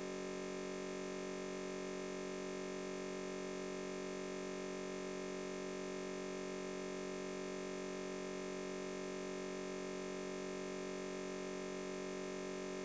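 A steady electronic drone of several fixed pitches that does not change at all. No rustle of plastic wrapping can be picked out.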